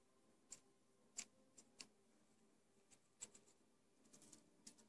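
Near silence broken by scattered faint ticks and crinkles from fingers handling a strip of aluminium foil tape, a little denser near the end.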